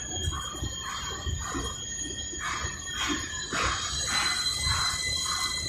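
CNC spring coiling machine running, with a steady high whine and a rhythmic rasp about twice a second that grows louder about halfway through.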